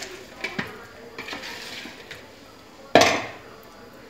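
Spoon and bowl clinking: a few light clicks, then one loud clang about three seconds in that rings briefly.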